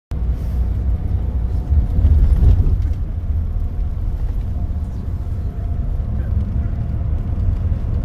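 Tour coach's engine and road rumble heard from inside the passenger cabin: a steady low drone with a faint humming tone above it.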